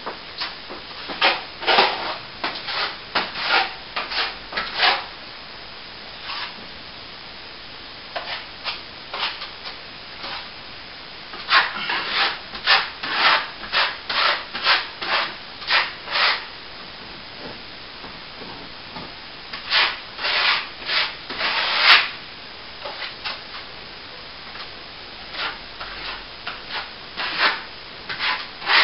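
A hand tool rubbing against a plaster wall in quick rasping strokes, about two to three a second, in several runs with short pauses between them, as cracks in the plaster are worked on.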